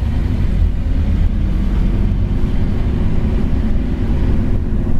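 Scania OmniCity N230UD double-decker bus's five-cylinder diesel engine running as the bus drives along, heard from inside the passenger cabin as a steady low drone mixed with road noise.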